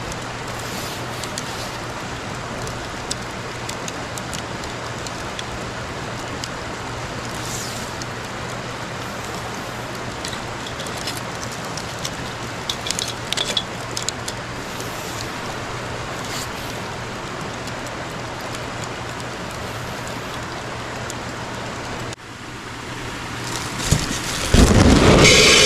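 Wood campfire crackling over a steady hiss, with scattered sharp pops, a few bunched together about halfway through. Near the end the hiss drops out abruptly and a much louder low sound comes in.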